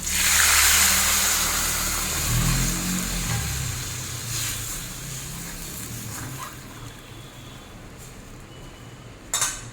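Coconut milk poured into a hot kadai of fried spice paste in mustard oil: a loud sizzle starts at once and dies away gradually over several seconds. A short sharp clatter comes near the end.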